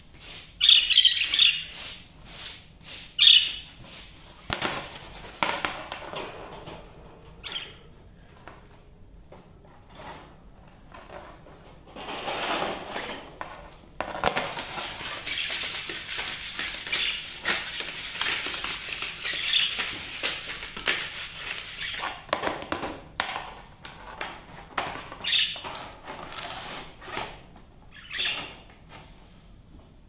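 A stiff brush scraping and scrubbing a plastic budgie-cage tray in repeated strokes, with a long stretch of steady scrubbing in the middle. Budgerigars chirp now and then over it.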